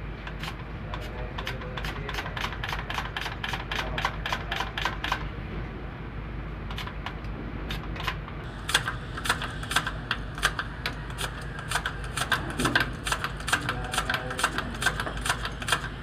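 Rapid, even mechanical ticking, about four clicks a second, over a steady low machinery hum. The ticking stops briefly about five seconds in and comes back louder and sharper from about nine seconds in.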